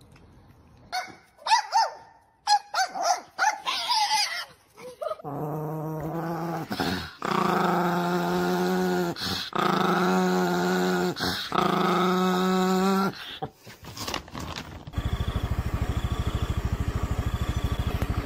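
A small chihuahua-type dog growling with teeth bared, in four long drawn-out bouts with short breaks between them. Before the growling come a few short, sharp high sounds, and near the end a steady buzzing drone takes over.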